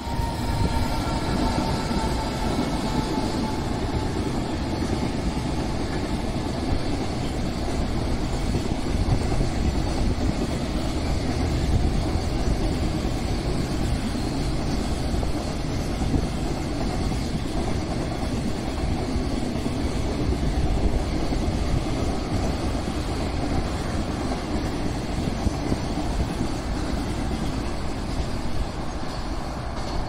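Electric-hauled container freight train passing close by, its wagons rolling steadily along the rails. A faint thin whine falls away over the first few seconds as the locomotive goes by.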